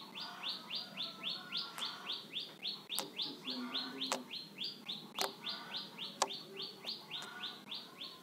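A bird chirping in a fast, even series of short falling chirps, about four a second, with a few sharp clicks among them.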